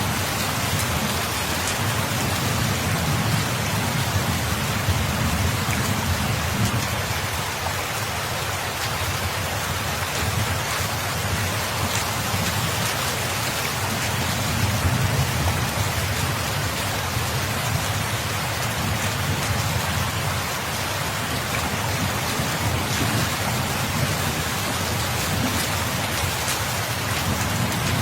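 Steady, dense rain falling, with a low rumble underneath that swells and fades several times.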